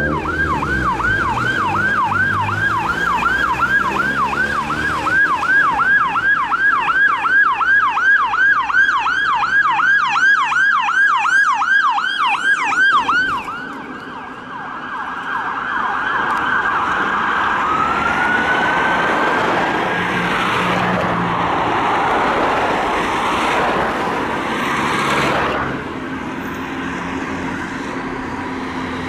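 Emergency ambulance siren on a fast yelp, about three sweeps a second. About thirteen seconds in it changes to a slower held and rising tone, then gives way to road traffic noise.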